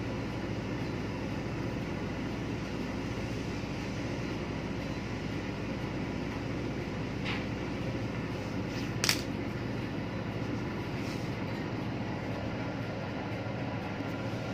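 Steady low drone of machinery and ventilation, with a faint tick about seven seconds in and a sharper click about nine seconds in.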